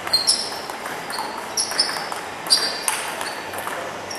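Table tennis rally: a ping-pong ball clicking sharply off the table and the paddles, a string of quick ticks, some in close pairs as a bounce is followed by a hit.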